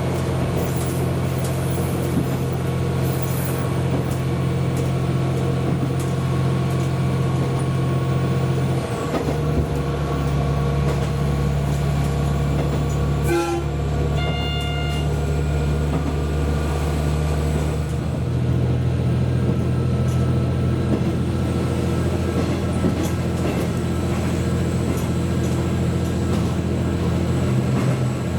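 Train running, heard as a steady low drone that shifts pitch about a third of the way in and again about two-thirds in. A brief knock and a short high tone come about halfway.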